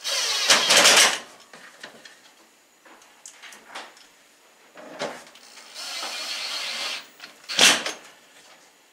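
Screws being fastened back into the top vent panel of a Samsung over-the-range microwave: a loud burst of mechanical noise lasting about a second at the start, a longer, quieter one about six seconds in, and a sharp click shortly before the end.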